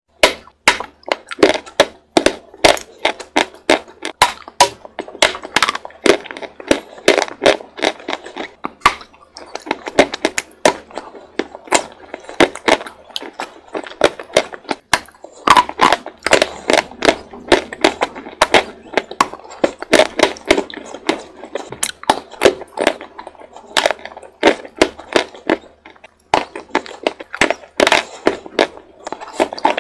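A person biting and chewing hard white chalk: loud, sharp crunches, several a second.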